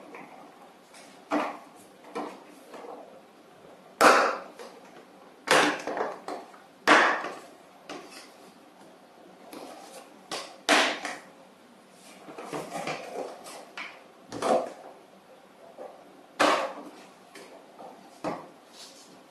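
Moulded plastic panels of a child's tricycle body being handled and pressed together: irregular knocks and clacks of hollow plastic, with about half a dozen louder knocks among softer rattles and scrapes.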